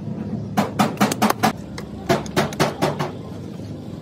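Hammer tapping on metal in two quick bursts of about six blows each, several blows a second, typical of panel beating in a denting workshop.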